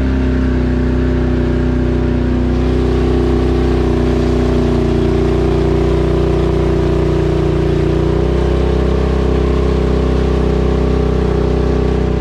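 Vehicle engine running steadily at an even speed, with a slight change in pitch about eight seconds in.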